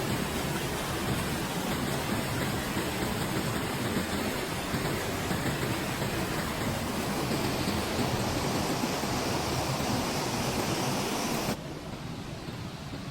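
Steady rushing roar of Pistyll Rhaeadr, a tall single-drop waterfall. About a second and a half before the end it suddenly drops in level and turns duller.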